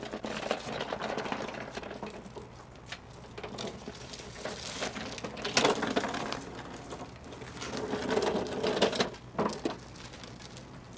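Rapid, irregular mechanical clattering, louder in stretches around the middle and again near the end.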